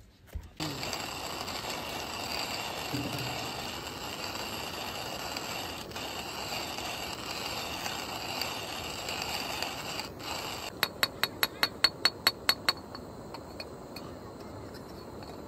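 Hand coffee grinder being cranked: a steady crunchy rasp of beans being ground for most of the time. Near the end come about ten quick sharp clicks, some five a second.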